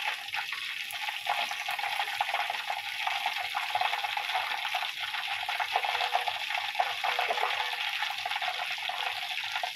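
Flour-coated chicken pieces deep-frying in hot oil in a steel wok: a steady sizzle full of small crackles and pops.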